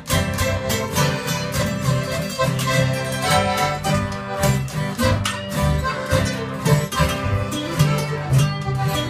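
Small acoustic band playing live: strummed acoustic guitars and a button accordion over a walking upright-bass line, at a steady strumming rhythm.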